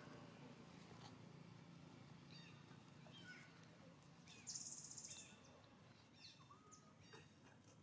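Faint outdoor ambience with scattered short, high-pitched animal chirps and whistles, and a brief buzzy sound about halfway through.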